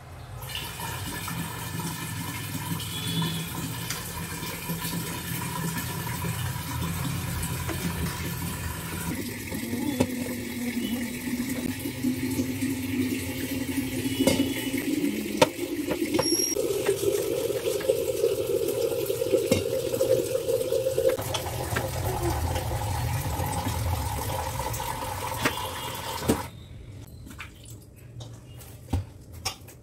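Water running steadily, with a tone in the flow that jumps in pitch a few times, cutting off suddenly about 26 seconds in.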